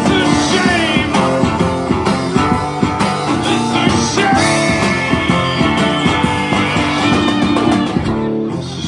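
Live rock music: strummed acoustic guitar driven by drums and cymbals, with a man's wordless singing that holds one long note through the middle.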